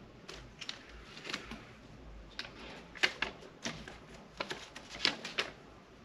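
A folded paper instruction sheet being handled and unfolded: a string of sharp, irregular crackles and clicks, loudest about three and five seconds in.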